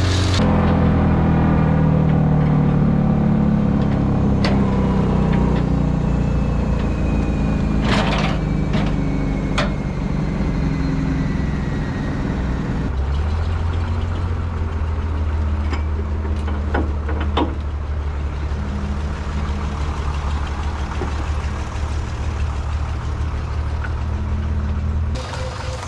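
Tractor engine running while driving, a steady low drone with a few sharp knocks and rattles. The engine note changes about halfway through.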